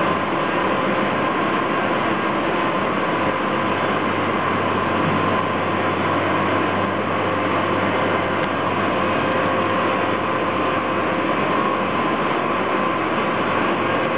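Industrial machinery running in a workshop: a steady mechanical hum with an even whine, unchanging throughout.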